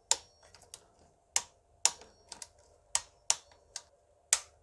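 Ratchet wrench clicking as the fuel rail bolts are tightened: a string of about ten sharp metallic clicks, irregularly spaced about half a second to a second apart.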